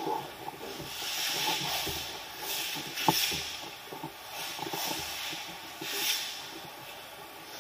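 Two jiu-jitsu grapplers in gis moving on the mats: cloth rustling and scuffing in repeated noisy bursts, with a short thump about three seconds in.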